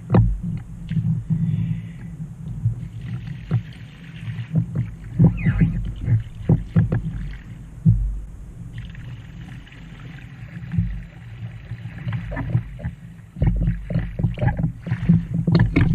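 Kayak paddle blade slapping and splashing on the water during low-brace strokes, with water sloshing around the hull and a steady low rumble.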